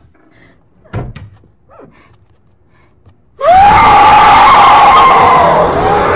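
A woman screaming loudly and at length, starting suddenly about three and a half seconds in with a rising cry that then holds and wavers. Before it, a single thump about a second in.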